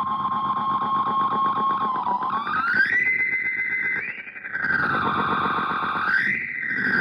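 MXR Carbon Copy analog delay pedal self-oscillating: a distorted, pitched feedback tone from the runaway repeats. It holds steady, glides up about two seconds in, dips briefly past the middle, then rises again and begins to fall near the end.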